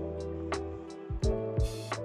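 Background music with a steady beat: drum hits, a sustained bass line and chords, with regular high ticks and a brief hiss near the end.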